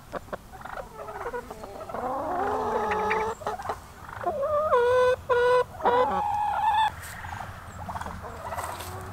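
Hens calling: a string of drawn-out, pitched squawks, several coming close together about halfway through.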